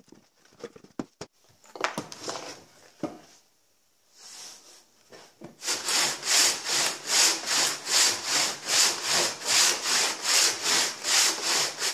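A few wooden knocks as sawn blocks are handled on a workbench, then from about five seconds in a two-person pitsaw ripping a log lengthwise, in an even rhythm of a little over two strokes a second. The saw is an old two-man saw refiled with rip teeth and no raker teeth.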